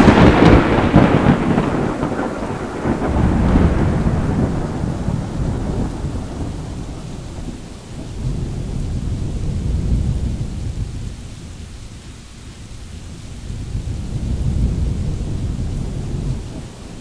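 Thunderstorm: a thunderclap dying away over the first couple of seconds, then low rolling thunder swelling and fading three more times over a steady hiss of rain.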